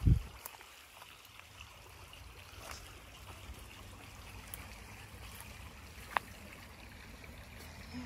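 Creek water trickling over rocks, with a loud low thump right at the start and a single sharp click about six seconds in.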